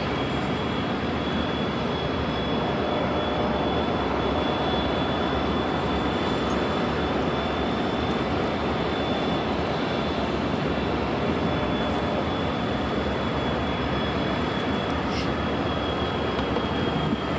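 Approaching diesel-hauled train crossing a steel truss bridge: a steady rumble of locomotives and wheels on the rails, with a thin steady high whine over it.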